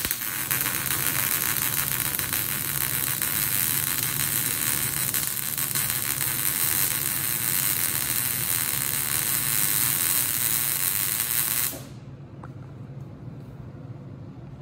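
MIG (gas metal arc) wire-welding arc laying the second bead of a three-bead pad on a metal plate: a steady, rapid crackle that stops suddenly about twelve seconds in as the weld ends.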